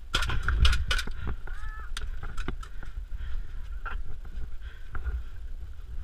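Irregular sharp clicks and knocks over a low rumble of wind and handling on the body-worn microphone, in the middle of an airsoft skirmish. A brief honk-like cry sounds about a second and a half in.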